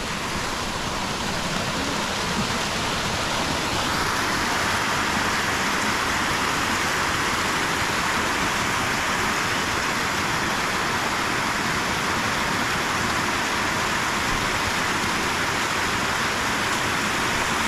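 River water rushing steadily, growing louder about four seconds in.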